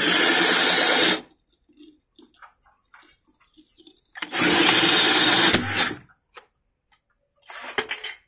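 Cordless drill spinning a glass hole saw against the wall of a glass jar, cooled with water, in two bursts. The first lasts about a second at the start, the second nearly two seconds about four seconds in. A few short knocks come near the end.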